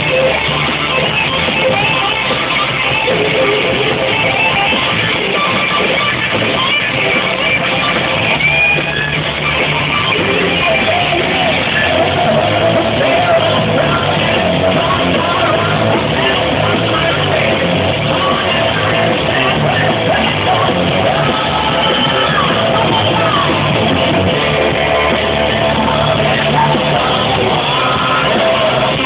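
Live rock band playing loudly through a concert PA, electric guitars and drums with sung vocals, recorded from within the audience.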